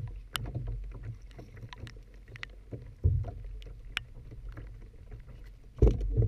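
Sounds of a kayak on choppy water: low wind buffeting the camera microphone and water lapping on the hull, with scattered small taps and louder knocks about three seconds in and near the end.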